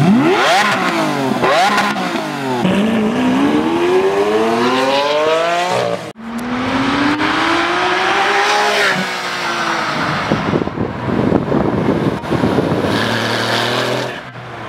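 Six-cylinder sports cars accelerating hard, one after another: the engine note climbs through several quick upshifts, then a Porsche 911's flat-six pulls away with one long rising note, then a rougher stretch and another rising pull as a second 911 accelerates away.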